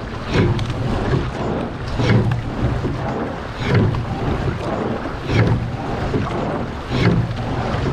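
Water rushing along the hull of a men's pair rowing shell, with wind on the microphone. A swish and low thud come with each oar stroke, about every 1.6 to 1.7 seconds, a racing stroke rate of about 36 a minute.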